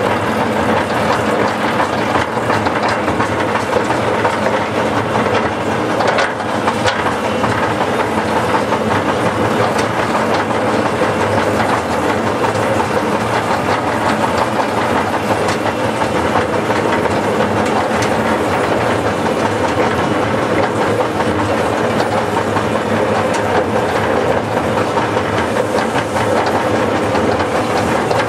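Miniature steam locomotive running along narrow-gauge track, its exhaust and wheels on the rails making a continuous, steady noise.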